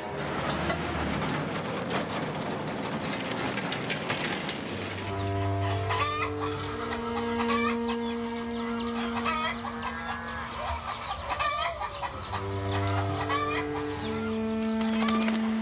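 Chickens clucking. From about five seconds in, sustained low music chords play under the clucking.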